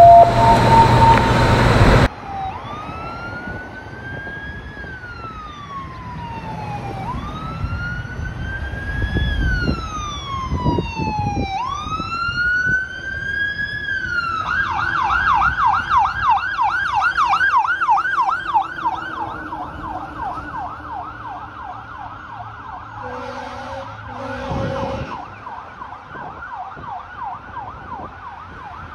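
A 2007 Pierce Quantum fire engine responding with its electronic siren: after a loud steady blare that cuts off abruptly about two seconds in, the siren runs through about three slow wails, quick rise and long fall, then switches to a fast yelp about halfway through. Two short lower-pitched blasts sound over the yelp near the end.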